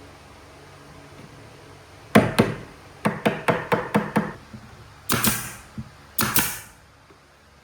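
Hammer blows on wood: two hard strikes, then a quick run of about six lighter ones, followed by two longer scraping strokes.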